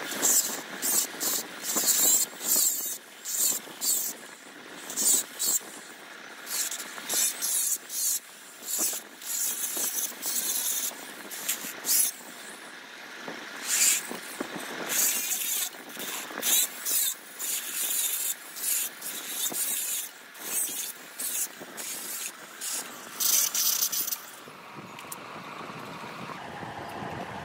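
Hand scraping strokes inside the intake port of a Yamaha RX135 two-stroke cylinder, as the port is worked by hand: a run of short strokes, roughly one to two a second, that stops near the end.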